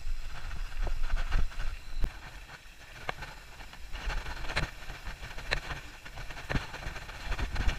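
Mountain bike rolling over a loose gravel dirt road: a steady low rumble of tyres on stones, with scattered sharp clicks and rattles as the bike jolts over rocks.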